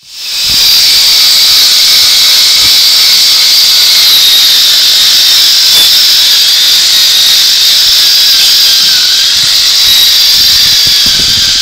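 Angle grinder running steadily against a rusty steel plate, grinding the rust off: a loud, unbroken high-pitched hiss.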